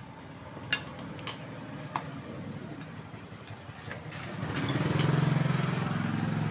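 Small sharp clicks and taps of hands handling the EHT anode cap and its lead on a CRT picture tube. From about halfway a low engine-like drone builds up and holds, the loudest sound, near the end.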